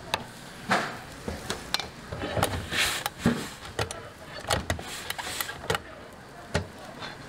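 Plastic rice paddle scraping and tapping on the nonstick plates of an electric nurungji grill while spreading cooked rice into a thin layer: a run of irregular scrapes and taps that stops near the end.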